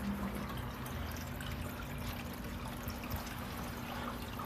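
Water trickling steadily with small drips, over a faint steady low hum.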